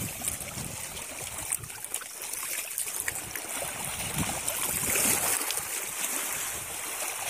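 Shallow seawater sloshing and trickling among shoreline rocks as someone wades through it, with a few small clicks; it grows a little louder after about five seconds.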